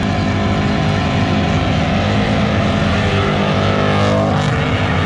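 A Toyota FJ Land Cruiser's engine held at high revs through a burnout, a loud, steady engine note with the revs lifting briefly about four seconds in.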